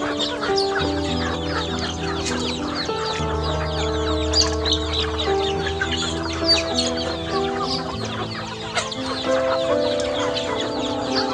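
A flock of chickens clucking and calling as they feed, many short overlapping calls all through, over background music of held notes that change pitch every second or so.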